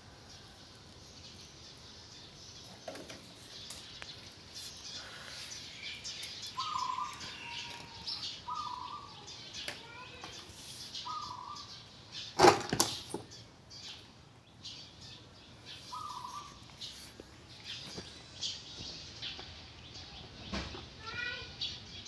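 Short high chirping calls, four of them spread through the middle and a few more near the end, with one loud sharp knock a little past halfway.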